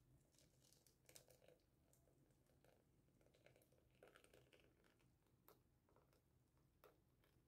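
Near silence, with faint scattered clicks and soft splatters as thick cake batter pours through a mesh sieve into a metal baking pan.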